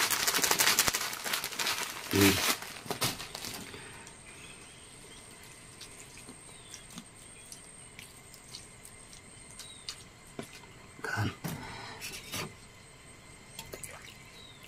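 Thin plastic bag crinkling and rustling as it is handled and poured from, fading within the first few seconds. Then scattered small clicks and taps of hands, a mug and food being handled, with two brief low sounds, one about two seconds in and one near eleven seconds.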